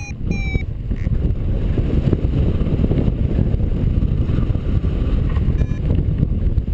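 Airflow buffeting the camera microphone on a paraglider in flight, a loud, steady low rumble. Just after the start, a last short sliding beep from the flight variometer ends its rhythmic beeping.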